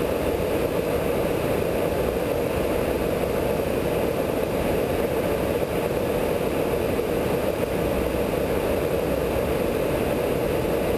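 Steady drone of engine and slipstream noise inside a KC-135 tanker's boom operator pod, holding an even level throughout.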